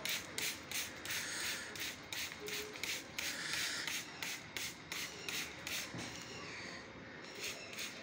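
Handheld trigger spray bottle squirting water mist in quick repeated pumps, several a second, each a short hiss, with one longer spray a little after three seconds in.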